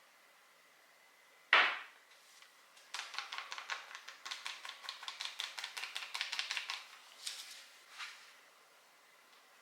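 A single sharp knock about a second and a half in, then a knife chopping quickly on a cutting board for about four seconds, roughly eight to ten cuts a second, ending in a couple of separate taps.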